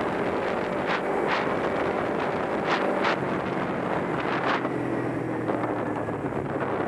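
Wind buffeting the microphone on a moving Kawasaki Ninja 250 sport bike, with its parallel-twin engine running steadily underneath. Several short gusts of wind noise stand out over the steady rush.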